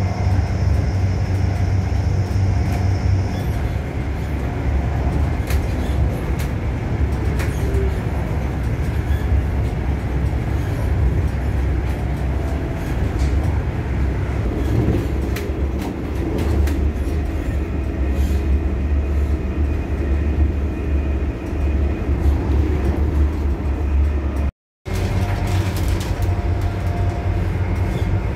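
Class 180 Adelante diesel multiple unit's Cummins diesel engines running with a steady low drone and scattered light clicks. The sound drops out for an instant near the end, then the drone carries on.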